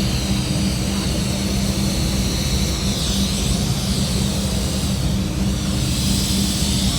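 Steady machine hum with a strong low drone and a high whine that dips and rises in pitch about three seconds in.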